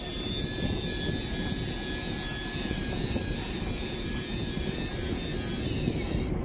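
Steady engine noise from heavy diesel equipment at a pipeline site, with wind buffeting the microphone.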